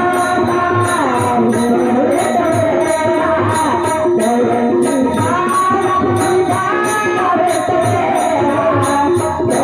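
Marathi abhang bhajan music: a gliding melody line over a steady beat of drum strokes and regular high, ringing percussive hits.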